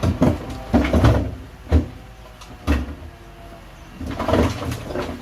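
Heavy earthmoving machinery at work with stones: an engine running faintly under a series of irregular heavy knocks and thuds as rock is pushed and dumped.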